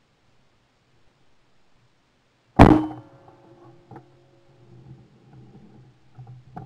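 A single shotgun shot about two and a half seconds in, heard from the gun-mounted camera, followed by a brief metallic ringing; a few faint knocks follow, and a sharper knock comes at the very end.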